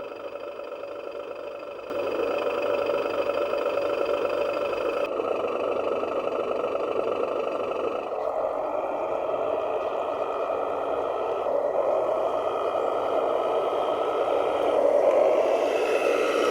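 Small electric motors of a 1/16 radio-controlled hydraulic truck whirring steadily. The sound changes abruptly about two seconds in, and again around five and eight seconds.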